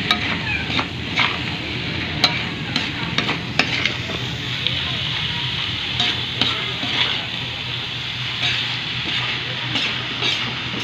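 Chopped chicken and pork sisig sizzling in a hot metal wok while a metal spatula stirs and tosses it, with scattered clicks and scrapes of the spatula against the pan.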